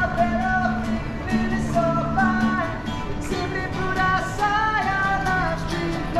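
Background music: a song with a sung melody over guitar.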